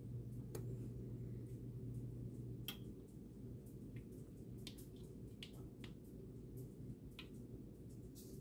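Faint, scattered ticks and small pops of egg-soaked bread starting to cook in a frying pan that is not yet hot enough, over a steady low hum. The hum's deeper tone drops away about two and a half seconds in.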